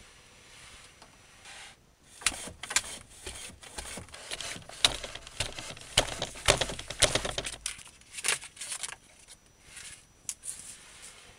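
Homemade wooden rig clattering as a hanging spiked block is pedalled down again and again onto a wooden block: a quick, irregular run of sharp wooden clacks and knocks, starting about two seconds in and thinning out near the end.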